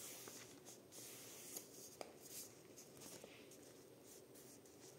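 Faint rustling and rubbing of paper as a glued magazine-page lining is pressed and smoothed flat against a cardboard cereal-box cover, with a couple of soft ticks.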